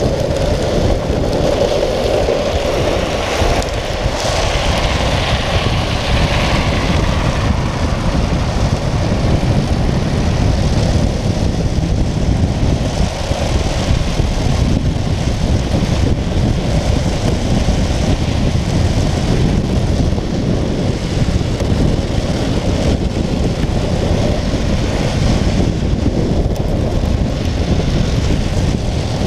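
Steady wind noise buffeting the microphone of a speed trike coasting fast downhill, with the rumble of its wheels rolling on asphalt.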